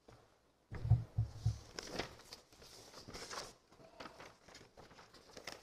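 Sheets of paper being handled and set down at a pulpit lectern, picked up by the lectern microphone. A few low thumps come about a second in, followed by paper rustling and crinkling with small knocks.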